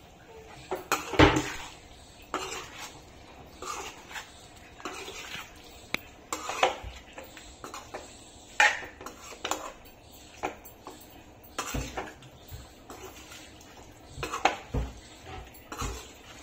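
A spoon knocking and scraping against a cooking pan in irregular strokes as pieces of mutton liver are stirred together with the added spice powders.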